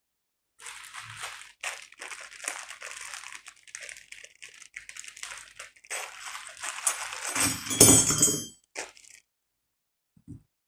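Packaging of a PC cooler's accessories crinkling and rustling as the parts are handled and unwrapped, in irregular crackles with a louder crunch about eight seconds in.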